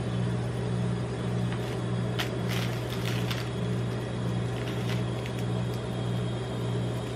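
Steady hum of a rolled-ice-cream machine's refrigerated steel cold plate running. Over it come a few light crinkles and taps from a chocolate bar being set on the steel plate and its foil-and-paper wrapper being handled, about two to three and a half seconds in and again near five seconds.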